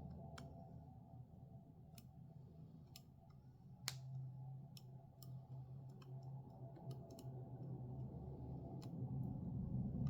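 Irregular small clicks and taps of hand tools on smartphone parts during reassembly, the sharpest about four seconds in, over a faint steady low hum.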